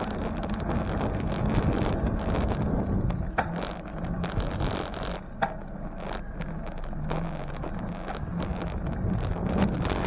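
Wind buffeting the microphone over the road rumble of a bicycle being ridden, with two sharp clicks about two seconds apart midway.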